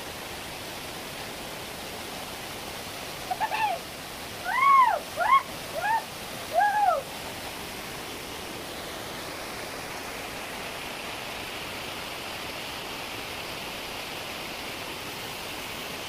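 Steady rush of a mountain stream flowing over rocks. Between about three and seven seconds in, a short run of five or six rising-then-falling calls sounds over it.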